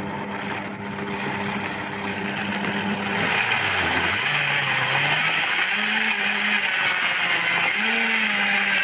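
Countertop blender running, blending fruit and leafy greens with water into a smoothie. It starts abruptly and grows louder about three seconds in, and the motor's pitch dips and recovers a couple of times as the load shifts.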